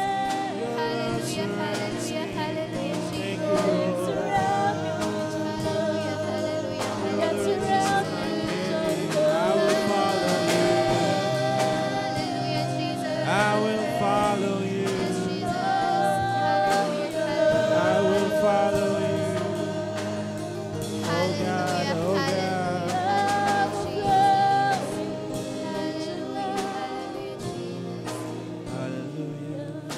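Church worship team singing a Christian worship song together, several voices over keyboard accompaniment.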